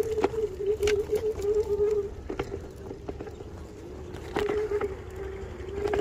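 Electric kick scooter's motor whining at a steady pitch, fading out about two seconds in and coming back near the end. Sharp clicks and knocks come through as the scooter rattles over a rough dirt track.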